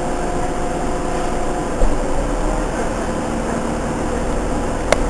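Cabin sound of a New Flyer C40LFR transit bus under way, its Cummins C Gas Plus natural-gas engine and Voith D864.3 automatic transmission running with a steady drone and whine. There is a thump about two seconds in and a click near the end.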